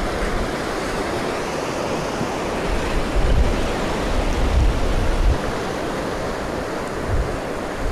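Ocean surf breaking and washing up a sand beach, a steady rushing wash. Wind buffets the microphone in low gusts around the middle.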